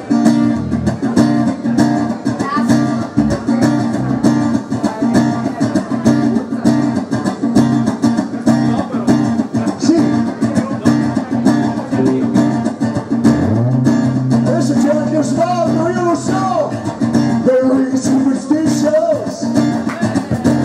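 Live guitar band playing an improvised funk groove: a chopped guitar riff repeats on the low E string over a steady low line, with a lead electric guitar adding bending fills from about two-thirds of the way in.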